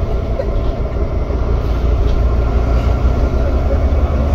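The interior of a Volvo B9TL Wright Gemini double-decker bus while it is driving: a steady low rumble from the diesel engine and drivetrain, mixed with road noise.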